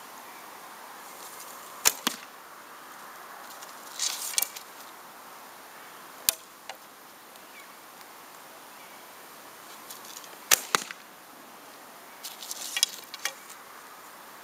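Falco Storm traditional bow being shot twice: each release is a sharp, loud snap of the string, the two shots several seconds apart with a fainter click between them. Between the shots come rattling, scraping sounds of arrows being pulled from a back quiver and nocked.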